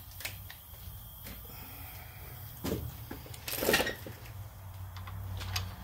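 Metal hand tools being handled while a socket is fetched: a couple of light knocks and one brief clattering rattle about three and a half seconds in, over a steady low hum.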